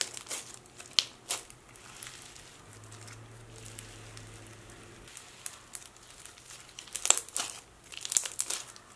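Thick pink scrub slime squeezed and poked by hand, crackling and popping in sharp bursts near the start and again in the last two seconds. In the middle it goes quieter while the slime is stretched out.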